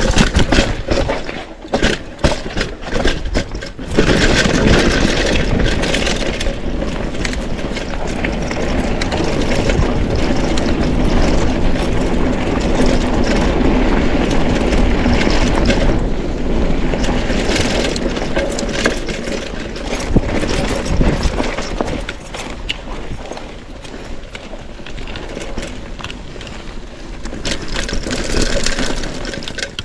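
Mountain bike descending a rough dirt trail: wind rushing over the camera's microphone, with tyres crunching and the bike rattling and knocking over rocks and roots.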